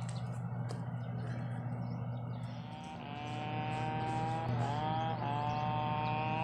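A vehicle engine running steadily with a low drone; about three seconds in a steady high whine joins it, dipping briefly in pitch twice.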